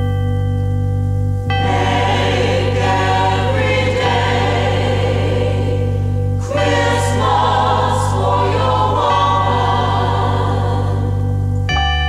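Music with a choir singing, entering over a held chord about a second and a half in, with a brief break midway. It gives way to steady held keyboard tones near the end.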